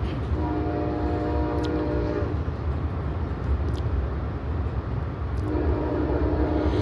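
Amtrak Borealis locomotive horn sounding a chord in two long blasts, the second starting near the end. Underneath runs the steady rumble of the moving passenger train.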